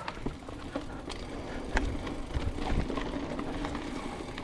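Silverback Stride SX 29 hardtail mountain bike rolling over a rough dirt trail: tyres on the ground with a steady run of small clicks and rattles from the bike, and a louder knock about two seconds in.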